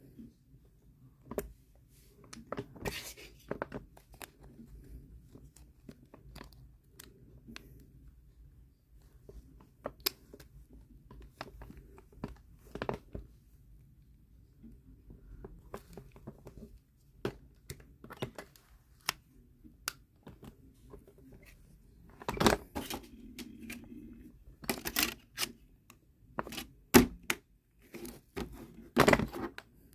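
Scattered small plastic clicks, taps and rustles of mobile phones being handled, their batteries and back covers being fitted and snapped on, with louder clusters of clicks in the last third.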